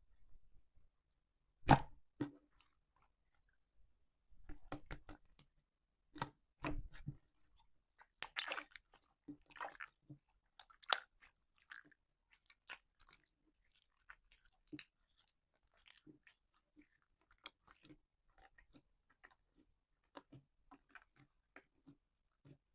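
Slime being squeezed and handled, giving irregular sticky crackles and pops. The pops are denser and louder in the first half and become sparser and fainter toward the end.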